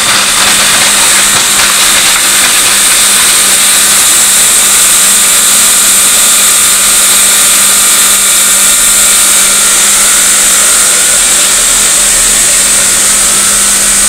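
Pressurised flushing fluid and gas blowing out of an air conditioner's refrigerant line into a plastic bottle: a loud, steady hiss, with a steady low hum underneath. It is the flushing stage that blows the old yellow oil and dirt out of a choked capillary tube.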